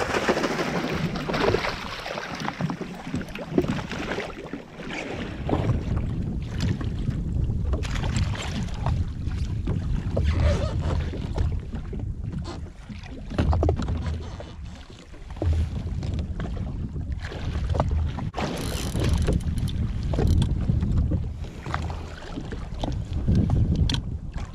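Wind buffeting the microphone and sea water slapping against a jetski's hull, with splashing near the start as a hooked fish thrashes at the surface beside it.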